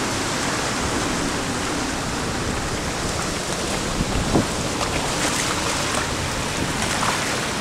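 Sea surf surging and foaming among shore rocks, a steady rush of breaking water, with a brief knock a little past the middle.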